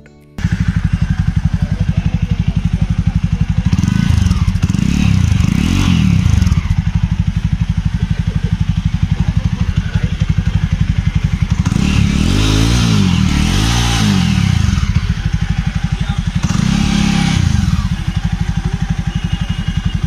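Jawa 42's single-cylinder 293 cc engine idling through its twin exhaust silencers, with a steady low beat. It is blipped up in short revs about 5, 13 and 17 seconds in, falling back to idle each time.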